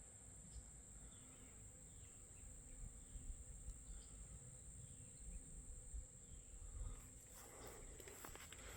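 Faint outdoor near silence filled by a steady high-pitched insect chorus, with a low rumble of wind on the microphone. Light rustles and knocks start about seven seconds in.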